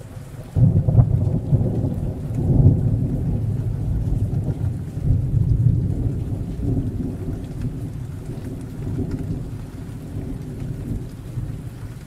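Thunderstorm: a long, deep roll of thunder comes in about half a second in, is loudest in the first few seconds and slowly rumbles away, over steady rain.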